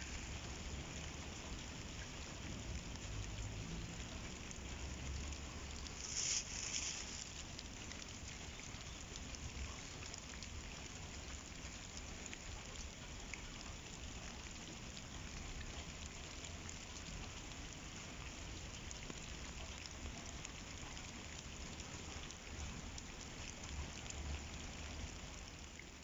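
Steady rain falling on wet pavement and fallen leaves, an even patter that swells briefly about six seconds in.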